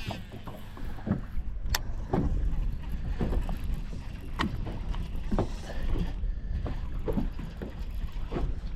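Open-water boat ambience: a steady low rumble of wind on the microphone, with scattered light knocks and clicks from the boat and fishing gear.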